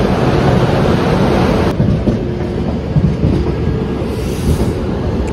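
Loud rumble and rush of an Indian Railways locomotive moving close alongside, with a clickety-clack of wheels on rails. It cuts off sharply about two seconds in, leaving a quieter low rumble.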